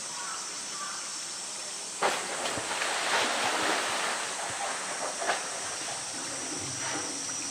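Polar bear plunging into its pool about two seconds in: a sudden heavy splash, then a few seconds of churning, slapping water as it swims.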